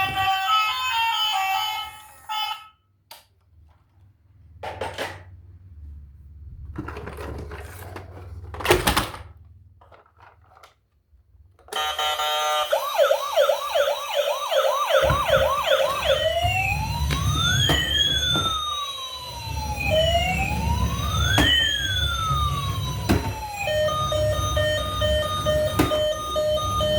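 Electronic emergency-vehicle siren sounds: a fast repeating yelp about halfway in, then a slow wail rising and falling in two crossing tones, and a stepped electronic tone pattern near the end. Before the siren come a short stepped electronic tune and scattered knocks with quiet gaps.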